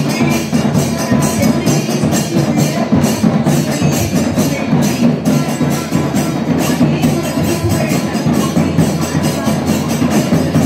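Music with fast, steady percussion strokes, like a tambourine or small drums, playing without a break.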